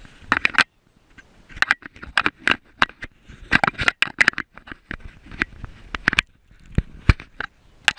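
Irregular scrapes, rustles and sharp clicks of handling noise on a GoPro harnessed to a dog's back, as the dog shifts about and is petted.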